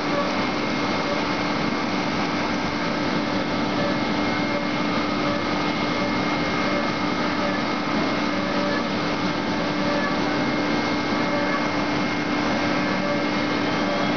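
CNC milling machine running a high-speed toolpath, an end mill cutting a metal part under flood coolant: a steady hiss of coolant spray and cutting with a constant whine from the spindle, unchanging throughout.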